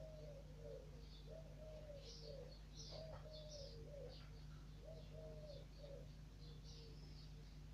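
A dove cooing faintly, over and over in short low phrases, with small birds chirping higher up. A steady low hum runs underneath.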